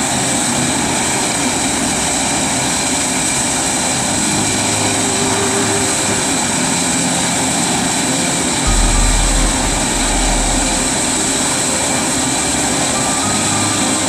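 A 900,000 kcal biomass pellet burner firing at full flame, making a loud, steady rushing noise of flame and fan. A brief low rumble comes about nine seconds in.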